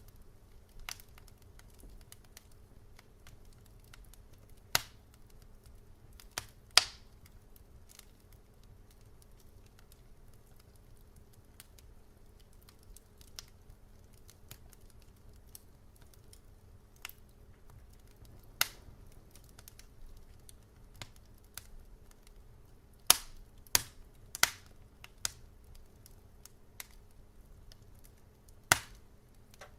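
Wood fire crackling: scattered sharp pops and snaps every second or few, a cluster of louder ones about 23 to 25 seconds in, over a faint low steady hiss.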